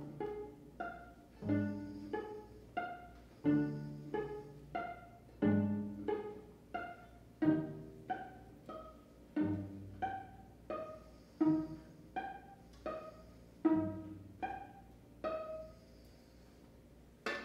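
String quartet playing a slow pizzicato passage: plucked notes that ring and fade, a low note about every two seconds with higher notes in between, then a brief lull near the end.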